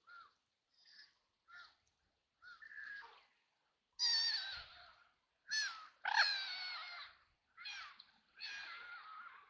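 Ducks quacking: several short, soft quacks, then from about four seconds in a run of louder, longer, harsh quacks.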